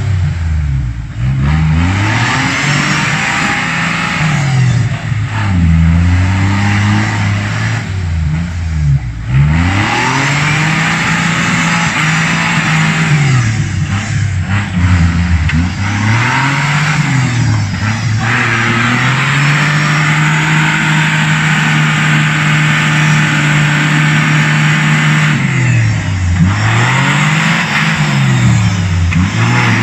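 Suzuki Grand Vitara's V6 engine revving hard again and again in deep mud, the pitch swinging up and down every couple of seconds, then held high for several seconds past the middle before dropping and rising again near the end.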